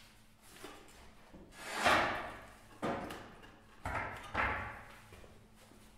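Workshop handling noise: a scraping slide about two seconds in, then three separate knocks, as heavy parts are shifted into position.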